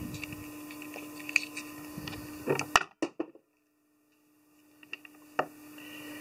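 Small clicks and rustles of hands wrapping thread and handling materials at a fly-tying vise, over a steady low hum. The sound drops out to silence for about a second and a half near the middle, and a sharper click comes near the end.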